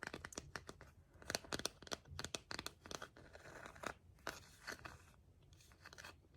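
Close-up crinkling and crunching: many sharp crackles as a crisp material is handled, thinning out near the end.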